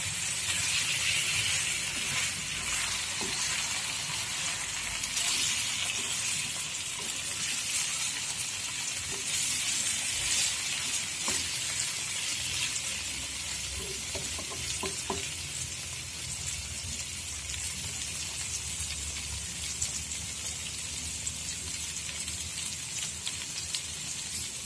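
Rendang cooking in a pan, meat and spice paste sizzling steadily, with a few faint clicks of stirring.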